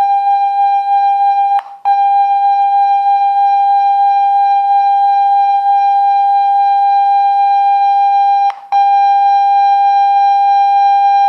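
Xiaomi Redmi phone's loudspeaker playing the MIUI Clear speaker tone at full volume: one loud, steady beep held on, broken by two brief gaps about two seconds and eight and a half seconds in. The tone is meant to shake dust out of a speaker that has gone quiet from being clogged.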